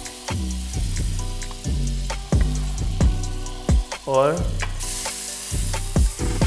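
Butter sizzling in a hot nonstick pan, the sizzle getting louder about five seconds in as the moong dal pancake is slid back into the pan. Background music with a steady beat plays throughout.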